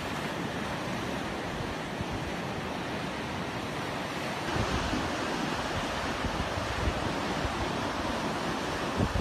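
Small ocean surf breaking and washing up the beach, with wind rumbling on the microphone. The surf grows a little louder about halfway through.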